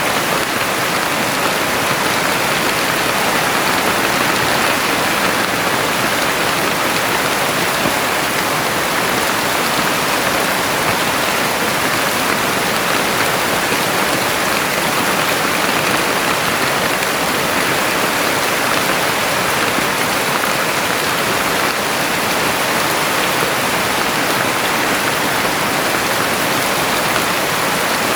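Heavy rain falling steadily, an even dense hiss with no separate drops standing out.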